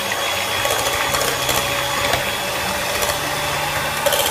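Electric hand mixer running steadily, its beaters whipping egg whites with cream of tartar into a foam for meringue. A steady motor whine with scattered rattling clicks from the beaters in the plastic bowl.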